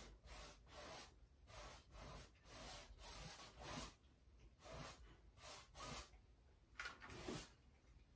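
Faint, repeated swishes of a paintbrush dragging oil paint across a stretched canvas: about a dozen short strokes at an uneven pace, the loudest two near the end.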